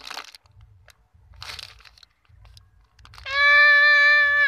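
Clear plastic zip-lock bag crinkling as a squishy toy is handled inside it. In the last second and a half comes a loud, steady, unwavering tone with many overtones that cuts off abruptly.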